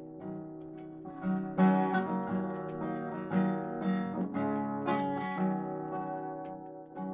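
Acoustic guitar playing chords in an instrumental intro, soft at first and louder from about one and a half seconds in.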